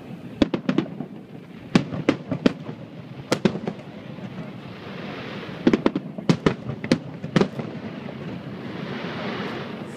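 Fireworks aerial shells bursting in quick clusters of sharp bangs. A hiss swells up twice between the bangs, about halfway through and again near the end.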